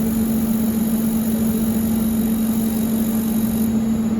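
Steady machine hum from robotic laser welding equipment, a strong low drone with a high hiss over it that cuts off suddenly near the end.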